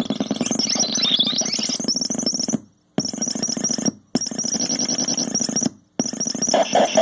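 Handmade oscillator noise generator putting out a harsh buzzing drone with rapid high chirping, its pitch sweeping down and back up about a second in. The sound cuts out and restarts three times in stuttering bursts, as when the hold or trigger buttons are pressed.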